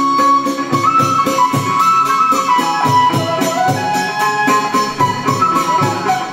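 Live chầu văn ritual music: a bamboo flute plays a slow stepwise melody over a moon lute, with a steady percussion beat about twice a second.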